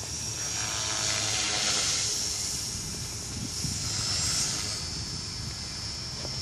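Align T-REX 450 Pro electric RC helicopter in flight: a high, steady whine from its brushless motor, gears and rotor, held at one pitch by the ESC governor. It swells louder about a second in and again around four seconds as the helicopter passes nearer.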